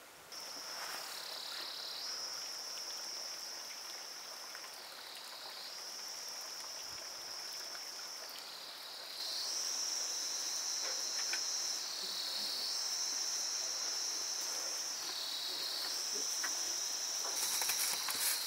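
Steady high-pitched insect buzz that dips briefly lower in pitch about every three and a half seconds and grows louder about halfway through. A few rustles and clicks come near the end.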